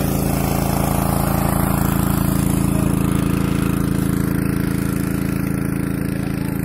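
An engine running steadily at an unchanging speed: a low, even hum.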